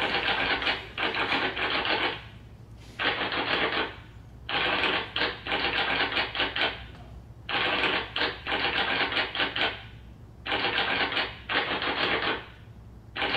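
Typewriter keys clacking in fast runs of typing, about five bursts of one to two seconds each separated by short pauses.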